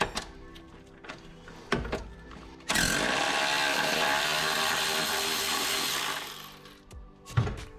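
Impact wrench spinning out a control arm bolt, starting abruptly about three seconds in, running steadily for about three and a half seconds and then winding down. A few light clicks and knocks of tools come before it.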